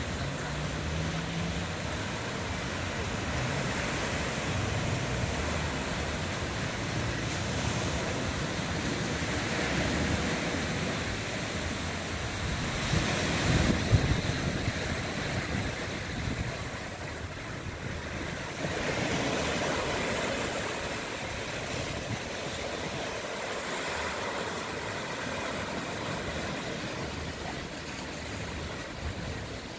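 Small ocean waves breaking and washing up on a sandy beach, swelling and fading every few seconds, loudest about halfway through.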